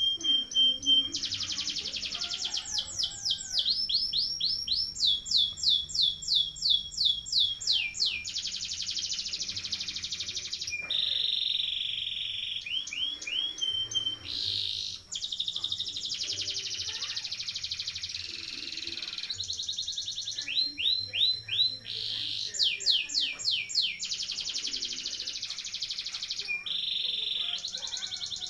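Domestic canary singing a long, nearly unbroken rolling song: fast trills of repeated high notes that change speed and pitch from phrase to phrase, with some long buzzing rolls between them.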